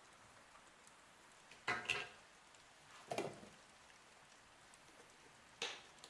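Three brief knocks and clicks of toiletry containers being handled at a bathroom sink: a quick double knock about two seconds in, another a second later, and a last one near the end.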